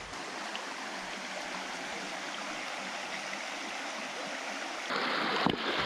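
Shallow river water running over stones, a steady rushing. It grows louder about five seconds in, with one short knock or splash just after.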